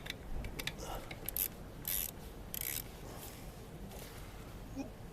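Hex key working a motorcycle alternator's mounting bolt loose: a few sharp clicks of tool on metal, then short noisy strokes about two seconds in and again a little later.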